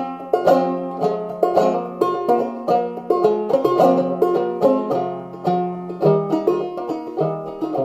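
Five-string banjo played clawhammer style in open G minor tuning (gDGBbD), a steady run of plucked melody notes over ringing strings, with occasional brushes across the strings.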